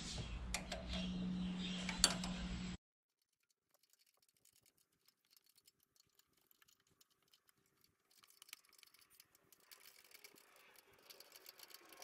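Faint clicks and taps of hands working the fuel injectors on individual throttle bodies, over a steady low hum. About three seconds in the sound cuts off abruptly. After that there are only faint scattered ticks, which grow a little busier near the end.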